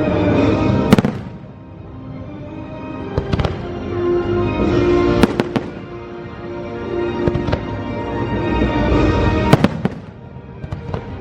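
Fireworks show: sharp firework bursts going off every second or two, the loudest about a second in, over accompanying orchestral show music.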